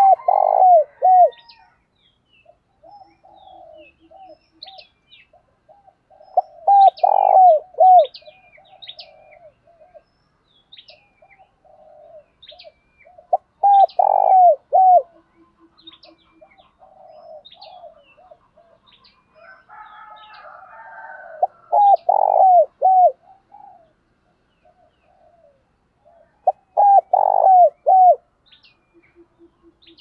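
Spotted dove cooing: five loud phrases of three or four notes, about one every seven seconds, with softer coos between them. Small birds chirp faintly at a higher pitch throughout.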